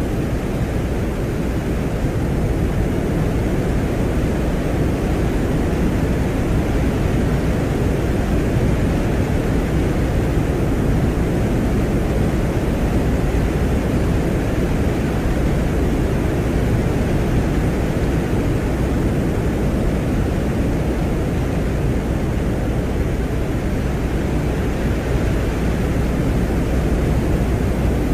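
Steady, deep hiss-like noise with no distinct events, heaviest in the bass and thinning toward the highs. It is attributed to the Soviet Venera 14 lander's surface recording on Venus.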